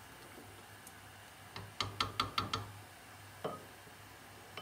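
A wooden spoon knocking against a stainless steel soup pot: a quick run of about six sharp taps around two seconds in, then one more a little over a second later, over a faint steady low hum.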